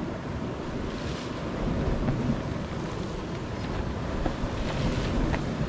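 Wind rumbling on the microphone over the steady wash of sea waves against a rocky shore.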